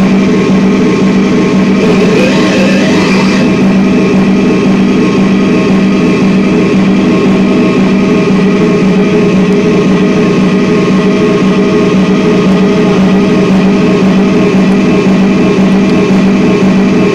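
Live experimental noise music from electronic effects pedals and a mixer: a loud, steady, dense drone on a low hum with several held tones above it. A hissy upper layer fades out a few seconds in.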